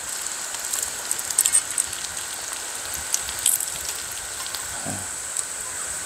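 Egg-coated gimbap slices frying in oil on a griddle: a steady sizzle with scattered small crackling pops.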